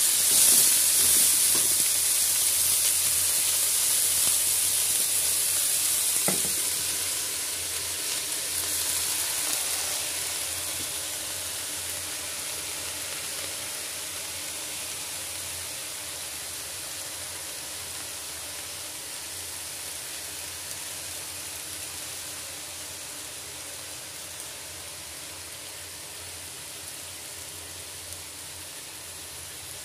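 Red amaranth leaves sizzling in a hot pan, loudest at the start and gradually dying down as the leaves wilt. A single short knock about six seconds in.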